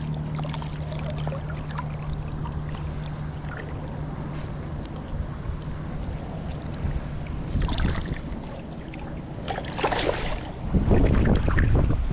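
A steady low motor hum stops about seven seconds in. Water noise follows in bursts, splashing or rushing, with the loudest and longest near the end.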